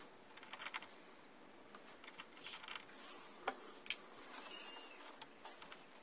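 Faint scattered clicks and light taps of a split air conditioner's plastic louver flap being handled and pressed into place by gloved hands, with a few louder clicks a little after the middle.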